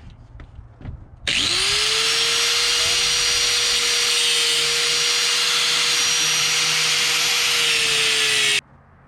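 A power tool with a cutoff wheel spins up about a second in, then runs steadily with a harsh, hissing grind for about seven seconds as it cuts relief cuts into a stuck supercharger drive pulley, and stops abruptly near the end.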